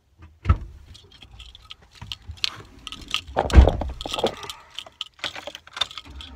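Handling noise of a phone held close to its microphone: rustling and rubbing against a hand and shirt, with scattered clicks and clinks, a sharp knock about half a second in and a louder thump about three and a half seconds in.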